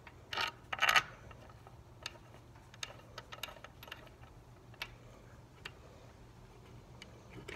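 Metal clinks and scrapes of a starter motor being handled and fitted against the engine housing, with a louder scraping clatter about half a second in, then scattered light clicks.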